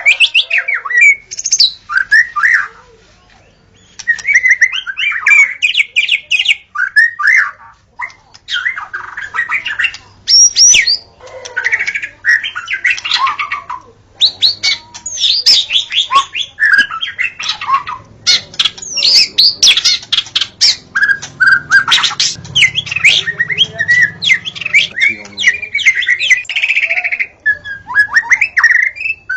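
White-rumped shama (murai batu) singing a loud, fast, varied song of whistled notes, glides and rapid trills, nearly continuous apart from one short pause near the start.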